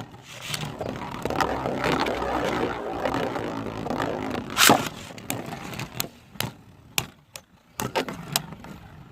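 Two Beyblade tops spinning and scraping against each other, with a busy grinding whir for the first few seconds and one loud clash a little before the halfway point. After that come scattered sharp clicks as they knock together less and less often, settling into a stamina battle.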